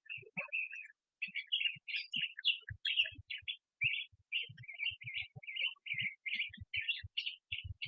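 Small songbirds chirping rapidly, many short high chirps overlapping with barely a gap, with scattered faint low thumps underneath.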